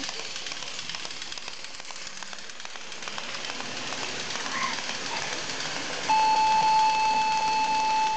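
Toy train running on its track around a Christmas tree, its wheels making a fast, even clicking. About six seconds in, the toy's electronic sound chip starts a loud, steady, high tone that holds for about two seconds.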